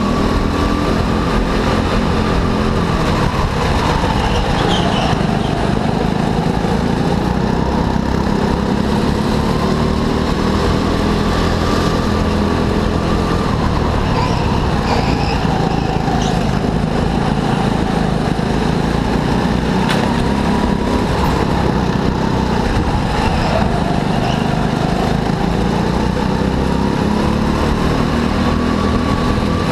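Go-kart engine running hard, its pitch climbing as it speeds up and sinking as it slows, over and over every several seconds.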